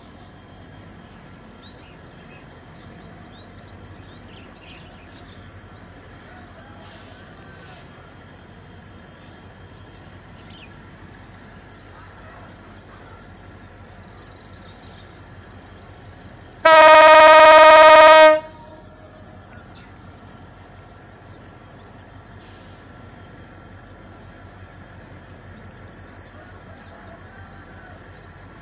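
Diesel locomotive horn giving one steady blast of about a second and a half, a little past halfway through, by far the loudest sound. Under it, a constant chirring of insects.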